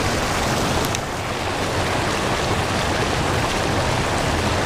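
Steady rushing of a swollen creek running high after spring rain, an even wash of water noise that dips slightly about a second in.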